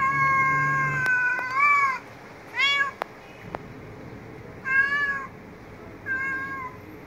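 Street cat meowing four times: a long drawn-out meow that rises in pitch at its end, then three shorter meows spaced a second or two apart.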